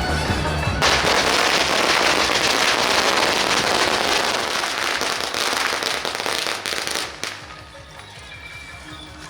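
A long string of firecrackers going off in a rapid, continuous crackle, starting about a second in and stopping abruptly near the end, over loud procession music.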